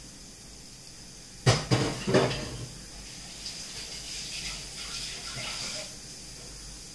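Metal cookware clanking three times in quick succession, followed by a few seconds of faint hissing.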